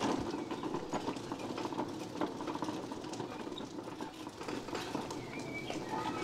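Mobility scooter driving along, its electric drive running with a fast, continuous mechanical rattle from the vibrating scooter-mounted gimbal bracket.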